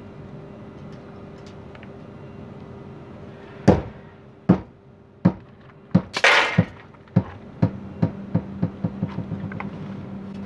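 A 14 lb sledgehammer swinging on a hinge, released from a 500 mm pull-back, strikes a fibreglass caravan wall hard about four seconds in. It then bounces against the panel again and again, the knocks coming quicker and fainter until they die out, with a brief scraping rush around the fifth knock. A steady low hum runs underneath.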